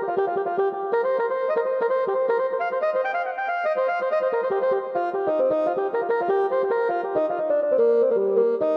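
Yamaha PSR-E433 portable electronic keyboard playing a quick, busy melody of short notes, with a falling run of notes near the end.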